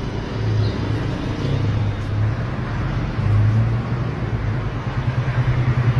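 Steady low rumble and hiss of a running vehicle, with a strong low hum throughout.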